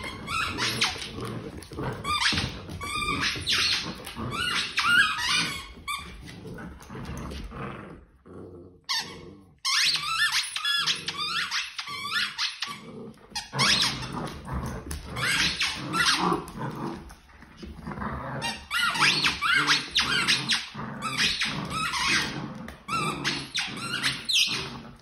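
German Shepherd and Belgian Malinois puppy playing tug over a toy: a near-constant stream of high-pitched squeaks and squeals, with a brief lull about eight seconds in.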